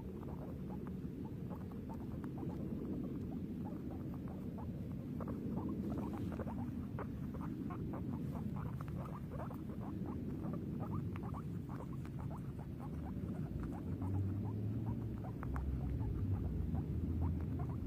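Guinea pig making quick, short clicking sounds, several a second, over a low steady rumble; a deeper hum comes in about two-thirds of the way through.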